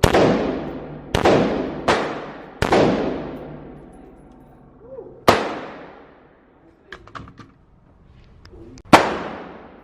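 Six gunshots from a firearm being fired at a shooting range, each a sharp crack followed by about a second of echo: four in quick, uneven succession over the first three seconds, then one about five seconds in and a last one near the end.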